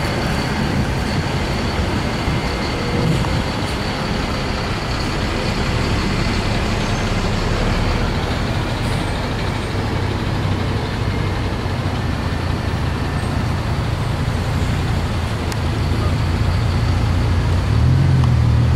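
Steady road traffic with heavy vehicles' engines running close by. Near the end the low engine sound of a Bentley Continental GT's W12 grows louder as the car moves off past the microphone.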